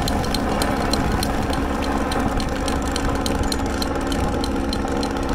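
Motor vehicle engine running steadily at low revs, with a rapid scatter of sharp clicks and rattles over it.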